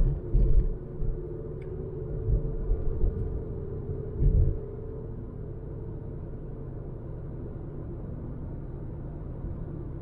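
Low rumble of a moving car, a 2006 Ford Focus with a 100 bhp petrol engine, with a steady hum that fades about halfway through. A few low thumps come near the start and again about four seconds in.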